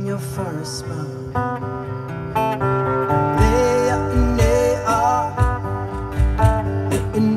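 Live band music: strummed acoustic guitar with electric bass, the bass notes coming in strongly about halfway through.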